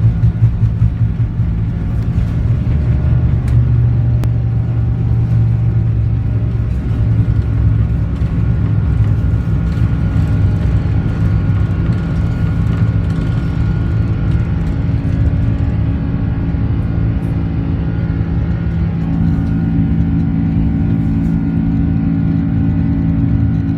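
Airliner taking off: a loud, steady low rumble of jet engines at takeoff power, with several steady whining tones above it that grow stronger from about six seconds in.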